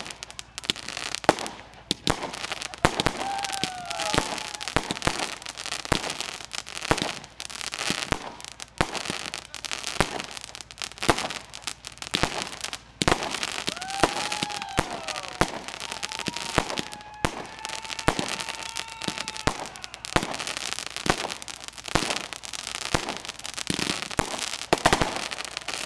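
Fireworks display: aerial shells bursting in a rapid, irregular string of sharp bangs, with crackling between the reports.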